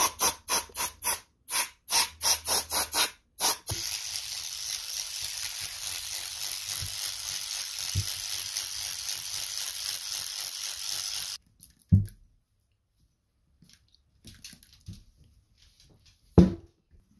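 Aerosol spray cleaner hissing onto an outboard lower unit's bearing carrier, first in a quick run of short spurts, then in one long steady spray of about seven seconds that cuts off suddenly. Afterwards two short knocks of parts on the bench.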